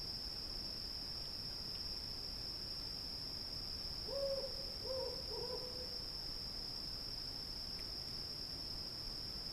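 Cicadas buzzing in a steady high drone at night, with an owl hooting three times in quick succession about four seconds in.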